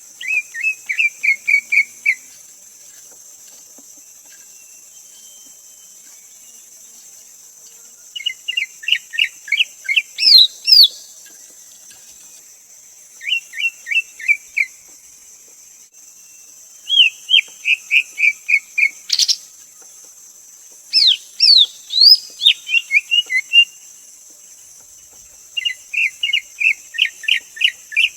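Greater green leafbird singing: about six phrases of quick repeated whistled notes a few seconds apart, some with sharp rising and falling whistles. A steady high hiss runs underneath, and one sharp click falls near the middle.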